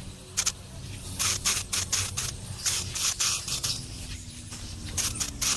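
Aerosol spray paint can spraying in a run of short hissing bursts, a fraction of a second each, some coming several a second, with a pause in the middle.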